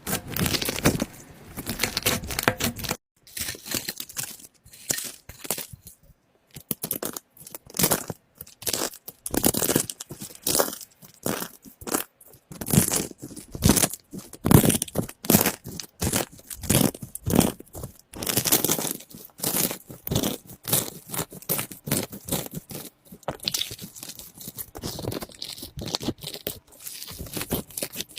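Slime being squeezed and stretched by hand, giving dense, irregular crackling and popping.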